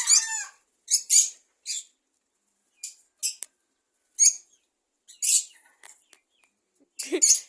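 Parrots in an aviary calling: short, high-pitched chirps and squawks, one or two at a time, every second or so.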